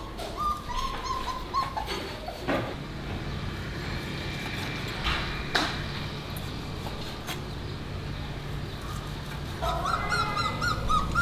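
High-pitched animal calls: one short drawn-out call about a second in and a quick series of short squealing calls near the end, with a few sharp knocks in between.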